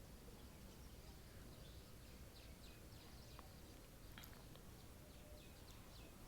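Faint bird chirps: a scattered series of short, high, downward-sweeping calls over a low steady hum, otherwise near silence.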